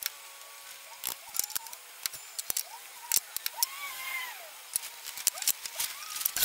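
Wooden blocks knocking and clacking against a table saw's metal top and fence as they are handled, with the saw switched off: a string of sharp, irregular knocks. Faint rising-and-falling tones can be heard in the background.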